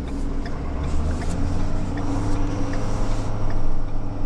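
Tow truck engine running steadily at low speed while the truck is manoeuvred, heard from inside the cab.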